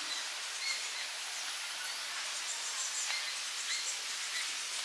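Steady outdoor background hiss with a few faint, brief chirps scattered through it.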